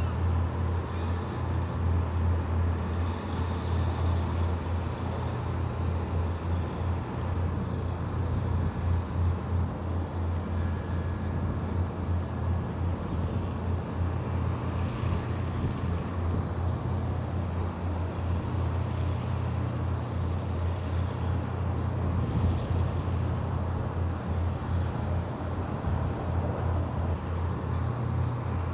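Steady low-pitched engine drone over a constant outdoor noise, unchanging throughout.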